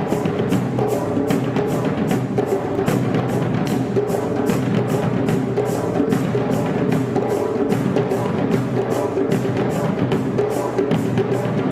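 Afro-Brazilian percussion music: drums beating a fast, even rhythm.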